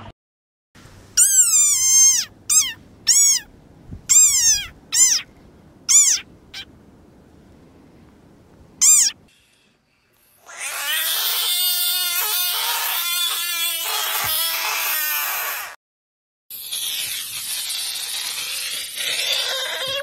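Budgett's frogs screaming with their mouths open. First comes a run of short cries, each falling in pitch. After a brief gap comes a harsh, loud scream lasting about five seconds, then a noisier, hissing stretch near the end.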